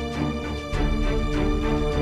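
Background music with sustained notes and a steady beat; the bass shifts to a lower note about a second in.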